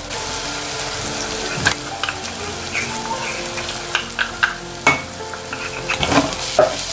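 Onion-tomato masala sizzling in hot oil in a pressure cooker as a wet ginger-garlic-coconut-coriander paste is added and stirred in with a spatula. A few sharp utensil knocks on the pot stand out over the steady sizzle.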